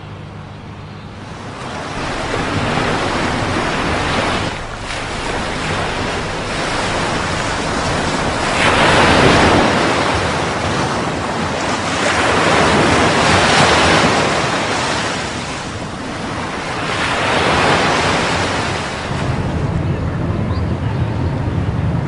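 Heavy ocean surf breaking on a rocky shore: several waves surge up and fade a few seconds apart, with wind in the background. A low steady hum is heard at the very start and again near the end.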